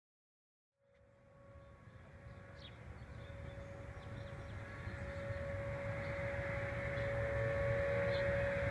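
Distant outdoor tornado warning siren sounding for its weekly test. It starts about a second in as one steady wail that grows louder throughout, over a low wind rumble. A second siren tone glides up in pitch beneath it near the end.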